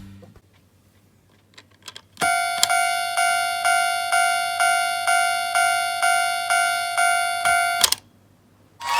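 Tomica Town Sound Light Railroad Crossing toy sounding its electronic level-crossing bell: a repeated ding, a little over two a second, starting about two seconds in after a few faint clicks. It runs for about six seconds and cuts off suddenly with a click.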